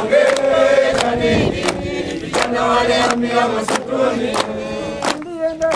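A large group singing a chant together in unison, with everyone clapping hands in time, a clap about every two-thirds of a second.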